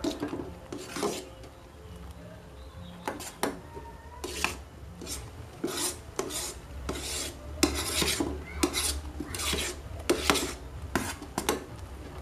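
Metal spoon scraping against the sides and bottom of an aluminium pot while stirring a thick strawberry ice-cream mixture. The strokes are repeated and rasping, about one or two a second, and come more often from about three seconds in.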